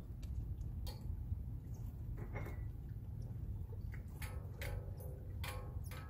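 A few short peeps from a newborn cockatiel chick begging in the nest box, most of them in the second half, with small clicks between them over a low steady hum.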